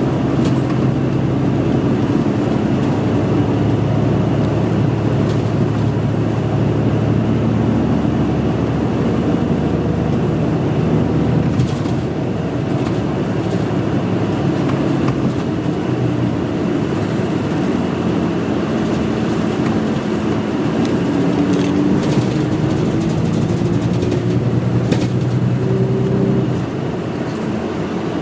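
Running engine and road noise heard from inside a moving route bus. The engine tone shifts up and down with speed, and the whole sound drops a little near the end.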